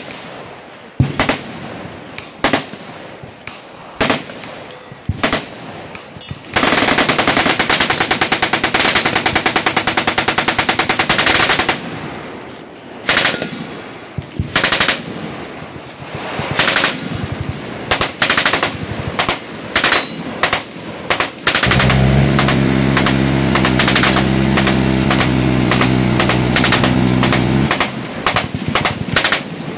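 Full-automatic machine-gun fire from a firing line that includes an MG34 fired prone off its bipod. Scattered shots and short bursts come first. A long sustained burst starts about six and a half seconds in and lasts about five seconds, and more short bursts follow. A second long burst from about 22 s to 28 s runs together into a steady buzz.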